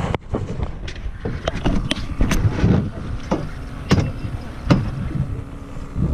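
Irregular knocks and clicks of gear being handled on a small fishing boat, over a steady low rumble of wind and water.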